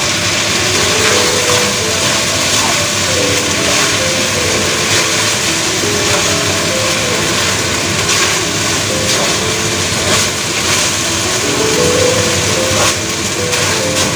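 Eggplant and minced meat sizzling in a hot wok, steady and loud, while a wooden spatula stirs and scrapes through it with occasional knocks against the pan. A simple melody plays underneath.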